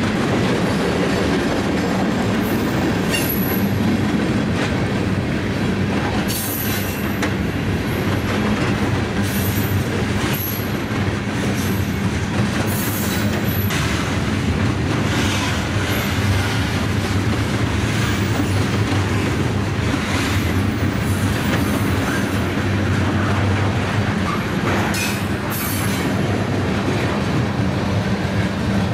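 Freight train cars, covered hoppers and tank cars, rolling past with a steady low rumble, scattered wheel clanks and brief high-pitched wheel squeals.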